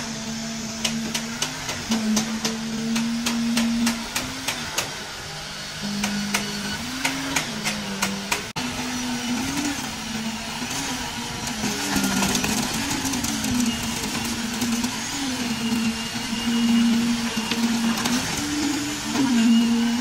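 A small engine or motor running under changing load, its pitch dipping and rising every second or two, with a fast run of sharp clicks through the first several seconds.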